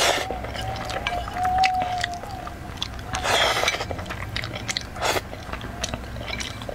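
Close mouth sounds of eating spicy instant fire noodles with chopsticks: a noisy slurp about three seconds in and a shorter one near five seconds, with wet chewing and small clicks between.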